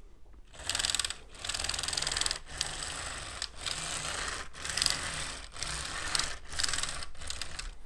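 The plastic link tracks of a COBI Panther G brick-built model tank clattering as the tank is rolled back and forth, in strokes of about a second each. It is a clatter like real tank tracks.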